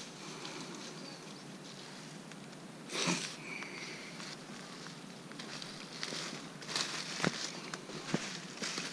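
Footsteps crunching through dry leaves and brush, with a louder rustle about three seconds in and a few sharp clicks near the end.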